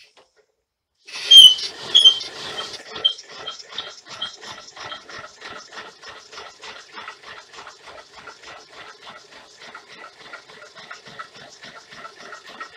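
Homemade alpha-type Stirling engine with dry PTFE lip seals on its pistons, starting up and running. About a second in it starts loudly with shrill squeaks for the first couple of seconds, then settles into an even beat of about four strokes a second.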